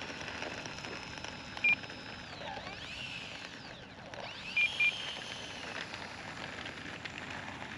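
Twin 64 mm electric ducted fans of an E-flite A-10 RC jet whining while taxiing, their pitch rising and falling with the throttle. Three short electronic beeps cut through, one about a second and a half in and two quick ones about halfway through.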